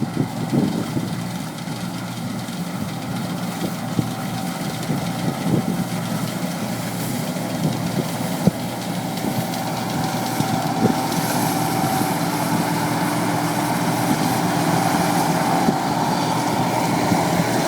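Gleaner L3 combine harvesters running steadily while cutting heavy wheat straw, their engines and threshing machinery making a steady hum with a few sharp clicks. The sound grows gradually louder as the nearer combine comes closer.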